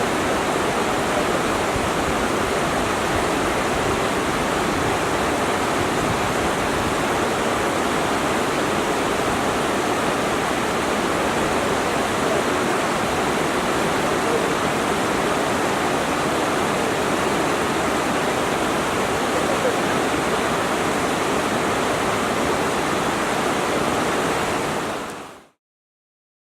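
Waterfall: a steady, even rush of falling water that fades out over about a second near the end.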